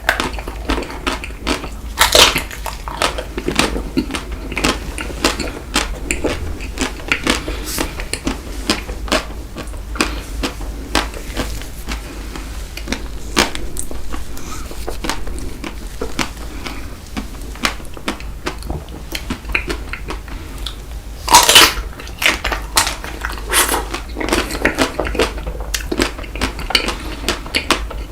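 Close-miked eating sounds of Tico chocolate-coated ice cream bites with Nutella: utensils clicking against a dish, and biting and chewing. There are louder clusters of clicks about two seconds in and again about twenty-one seconds in, over a steady low hum.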